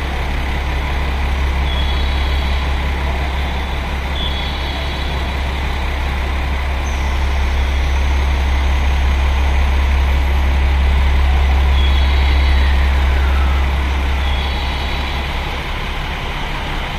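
Ainokaze Toyama Railway 521 series electric multiple unit humming loudly at the platform, then starting to pull away; the hum swells as it moves off and eases near the end. A brief high two-tone beep sounds four times.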